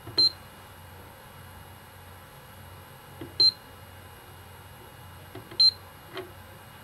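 Digital controller of a delvo electric screwdriver giving three short, high beeps about two to three seconds apart as its setting knob is worked to step through the menu. A faint click from the knob comes just before each beep, with one more click between the last two.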